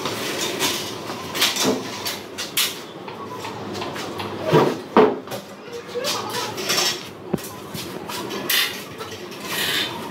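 Clinking, rattling and knocking as a glass-fronted ward cabinet is opened and a metal-framed folding privacy screen is pulled around a hospital bed. The clatters are irregular and loudest near the middle, with short swishes of curtain fabric near the end.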